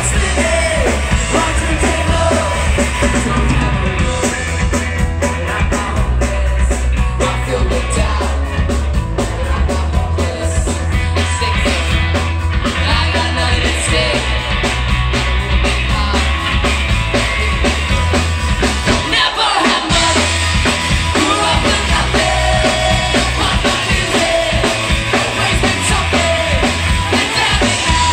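Ska-punk band playing live and loud: electric guitar, bass and drums, with a singer on the microphone. Heard from within the crowd. The bass and drums drop out briefly about two-thirds of the way through.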